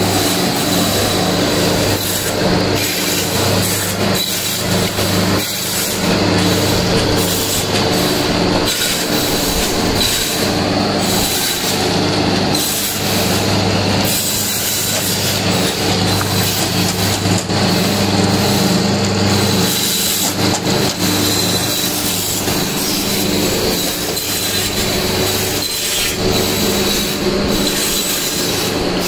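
Cassia-bark processing machinery running in a factory: a steady mechanical hum with a thin high whine, under continual clattering and knocks.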